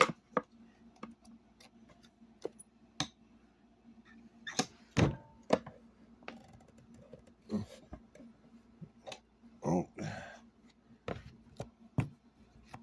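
Scattered clicks and knocks of hands and tools working at a loudspeaker's glued-on magnet to pry it off, with a heavier thunk about five seconds in.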